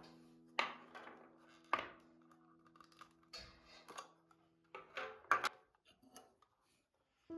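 Soft instrumental background music with held notes dying away, under several sharp clicks and knocks of household items being handled. The music drops out briefly and comes back in at the very end.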